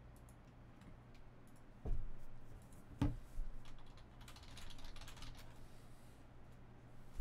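Computer keyboard and mouse clicking, with two louder knocks about two and three seconds in and lighter clicking after.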